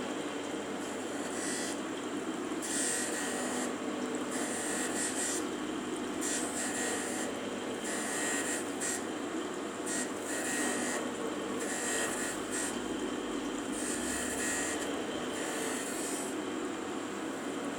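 A machine running steadily, with irregular bursts of high hiss coming and going every second or so.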